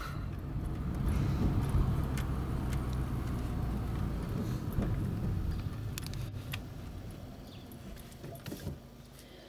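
Car engine and road noise, a low steady rumble that fades away over the last few seconds as the car slows, with a few sharp clicks and rattles.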